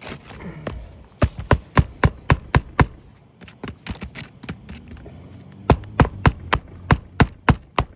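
Hammer driving roofing nails into replacement shingles: two runs of sharp strikes about three to four a second, with a short lull of lighter taps between them.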